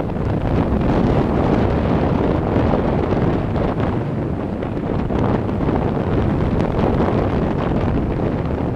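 Strong wind blowing hard and steadily across the microphone, over waves breaking on a lakeshore.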